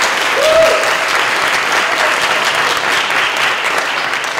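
Audience applauding, a dense steady clapping that eases off near the end, with one brief voice sound rising above it about half a second in.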